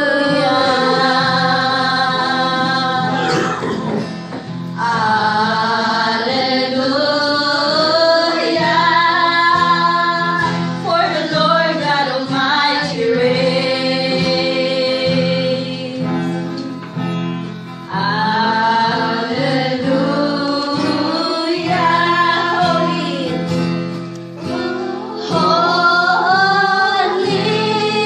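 A woman singing a Christian worship song solo in long, held phrases over guitar accompaniment, with brief pauses between phrases.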